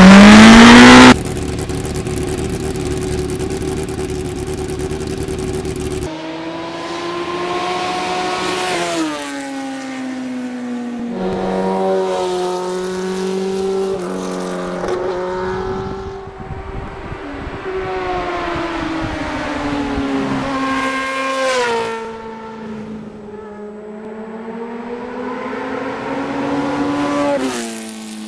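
Motorcycle engine revving and accelerating hard, opening with a very loud rising rev, then pulling through the gears: the pitch climbs steadily and drops abruptly at each gear change, several times over.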